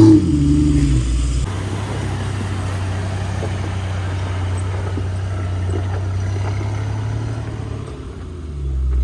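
Jeep engine running steadily with a low drone under road noise, dropping in pitch during the first second or so. It grows a little louder near the end, then cuts off suddenly.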